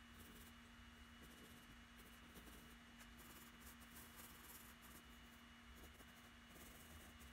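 Faint scratching of a graphite pencil on drawing paper in short strokes that come and go, over a steady electrical hum.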